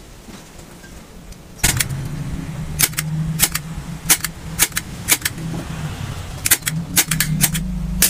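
About a dozen sharp, irregular metallic clicks from a hand tool as sections of a cut car tyre are fastened together to make a planter. A steady low hum starts about one and a half seconds in.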